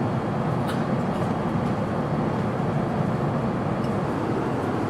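Steady cabin noise of an Airbus A350 airliner in cruise: engine and airflow rush heard from inside the cabin, even in level, with a few faint clicks.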